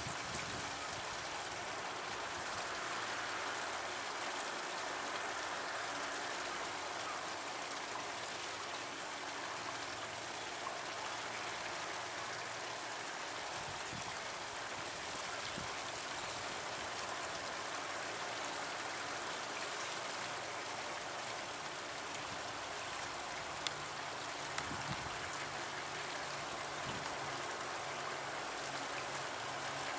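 Steady rushing of flowing stream water, with two faint ticks about three-quarters of the way through.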